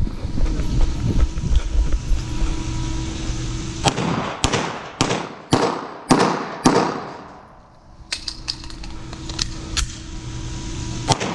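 Pistol shots fired in two quick strings, beginning about four seconds in, each crack trailing off in echo off the indoor range walls.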